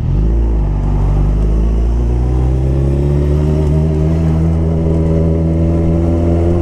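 Suzuki Hayabusa's inline-four engine pulling under acceleration, its pitch climbing steadily over a few seconds and then holding.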